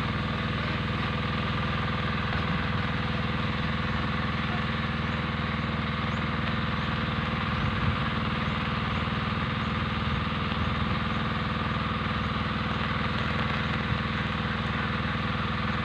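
Small engine running steadily at a constant speed, a continuous hum that holds one pitch throughout.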